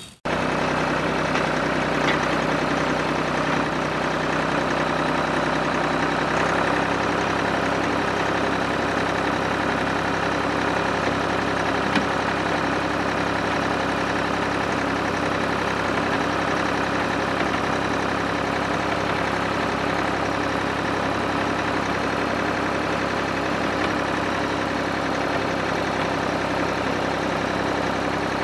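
Small DC gear motors of a miniature model tractor and its rotary sweeper brush running steadily: a constant buzzing whir of motors and gears as the spinning brush sweeps the ground.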